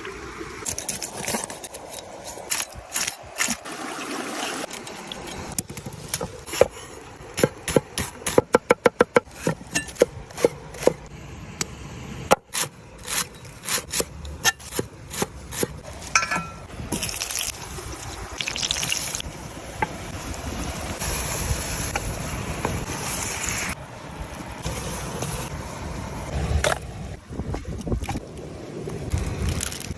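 A series of sharp knocks and taps, including a quick run of about ten strikes around eight to nine seconds in, over a steady wash of trickling water.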